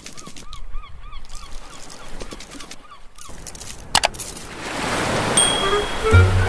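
A quick run of short, pitched, bird-like calls, about four a second, for roughly three seconds. Then a sharp hit about four seconds in, a swelling rush of noise, and music with a bass line starting near the end.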